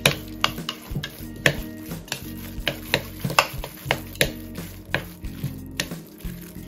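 Metal spoon and fork mixing ground pork and shrimp wonton filling in a ceramic bowl: irregular sharp clinks of the utensils against the bowl, about one or two a second.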